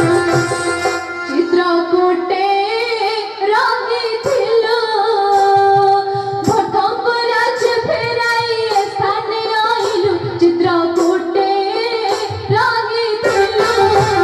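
Odia jatra stage song: a high voice sings a slow melody of long held notes that glide between pitches, over instrumental accompaniment.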